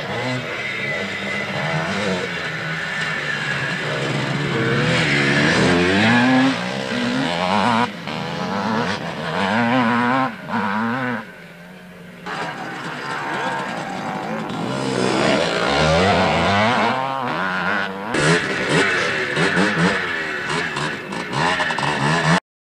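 Dirt-bike engines revving on a motocross track, the engine pitch repeatedly climbing and dropping as the riders accelerate and ease off. The engines fade about eleven seconds in before picking up again, and the sound cuts off abruptly near the end.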